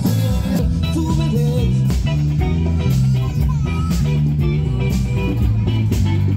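Band music led by guitar, with a bass line and a steady beat.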